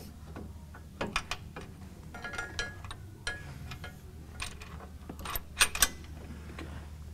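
Small metal clicks and clinks of steel washers being fitted by hand onto a bolt, with two sharper clicks near the end, over a steady low hum.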